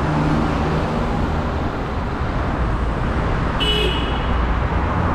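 Steady road traffic noise with vehicles running past on the road. A single short high-pitched beep sounds about three and a half seconds in.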